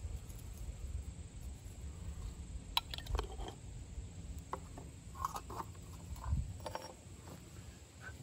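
Small glass jar's metal screw lid being twisted and handled, giving scattered clicks and short scrapes, then the jar set down on a wooden bench.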